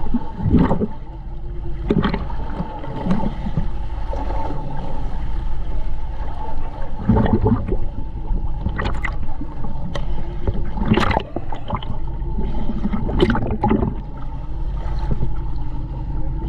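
Water sloshing and gurgling around the camera, with about six irregular louder surges, over a steady low hum.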